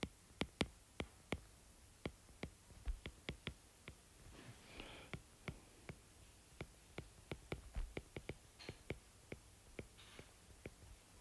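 Stylus tip tapping and clicking on a tablet's glass screen during handwriting: light, irregular clicks, about three a second.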